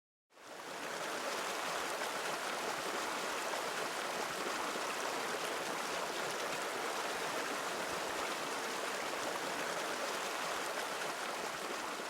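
River water running: a steady rush of flowing water that fades in just after a brief silence at the start.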